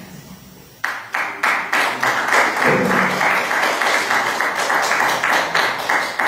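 Audience applauding: many hands clapping together. It starts suddenly about a second in and begins to die away near the end.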